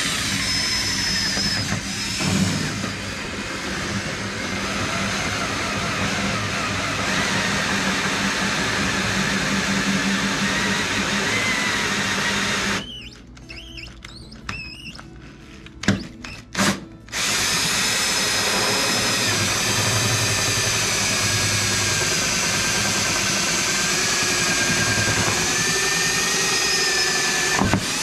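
Ridgid 18V cordless drill boring holes through the side of a refrigerator: a steady whine that drifts a little in pitch, running for about 13 seconds, stopping for a few seconds with a few short clicks, then running again for about 10 seconds.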